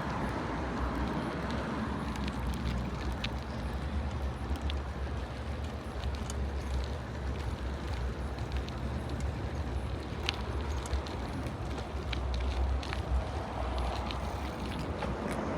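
Bicycle being ridden: steady tyre and wind rumble on the microphone, with scattered small clicks and rattles.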